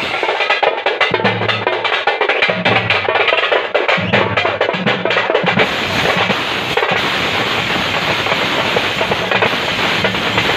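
Several stick-beaten drums played together in a fast, dense rhythm, the strokes thickest in the first half.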